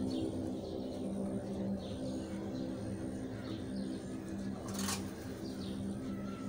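Birds chirping in short falling notes a few times over a steady low hum, with one brief rush of hiss just before the end.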